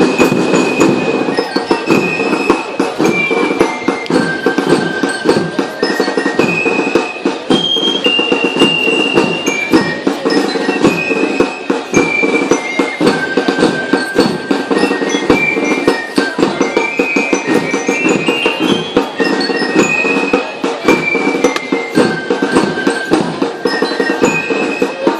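Band music: a melody of ringing bell notes, like a glockenspiel or bell lyre, moving step by step over dense, continuous drumming.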